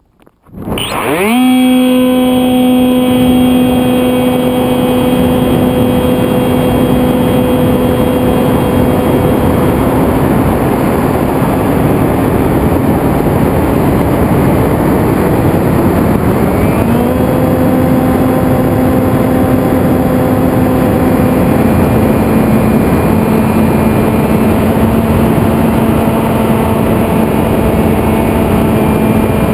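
Electric motor and propeller of a Zephyr FPV flying wing, heard from the camera on board: it spools up quickly about half a second in as the wing is launched, then holds a steady whine over rushing wind. The whine fades away from about ten seconds in and comes back as the throttle opens again at around seventeen seconds.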